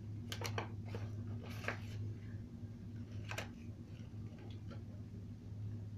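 Plastic blister packaging of a Hot Wheels die-cast car being opened by hand: a few sharp crackles and clicks, mostly in the first two seconds, with one more about three and a half seconds in, over a steady low hum.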